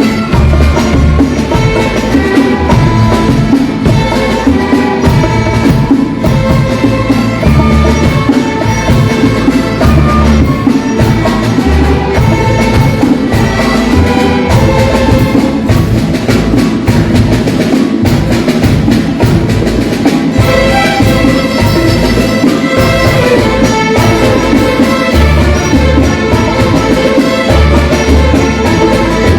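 Music with drums and percussion keeping a steady beat under pitched instruments.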